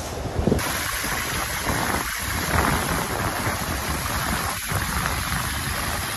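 Water rushing and splashing along the hull of a Class40 racing yacht sailing fast through choppy sea, with wind on the microphone.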